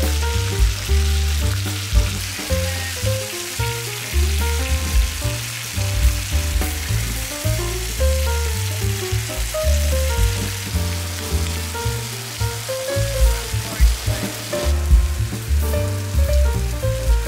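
Squid pieces sizzling as they fry in a pan, a steady hiss, under background music with a stepping bass line.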